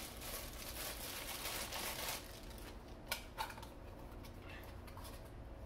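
Packaging rustling and crinkling as a small accessory is unwrapped by hand, dense for about two seconds, then two light clicks while a small cardboard box is handled.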